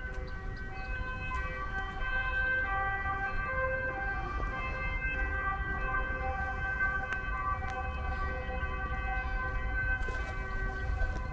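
Bells ringing, several notes of different pitch sounding and overlapping, the pattern of notes changing every second or so.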